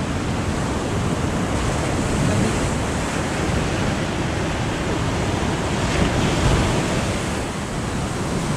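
Ocean surf breaking and washing up a sandy beach in a steady wash, with wind buffeting the microphone.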